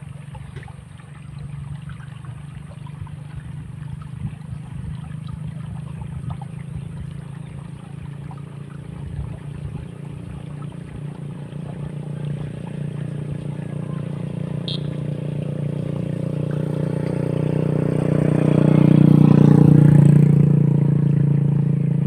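A vehicle engine humming steadily, growing louder through the second half and loudest a few seconds before the end, where its pitch dips slightly as it passes closest.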